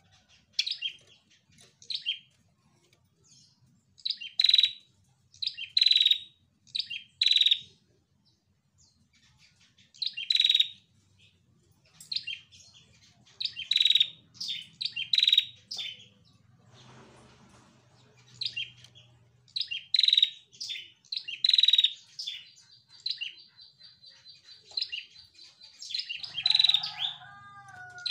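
Female prenjak (prinia) calling: sharp, high chirps in quick clusters of two to five, with short pauses between the clusters. About three-quarters of the way through there is a thin, steady high trill lasting a few seconds.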